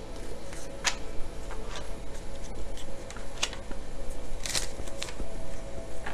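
Tarot cards being handled and shuffled: several short, separate crackles and slaps of card stock, the longest about four and a half seconds in, over a faint steady hum.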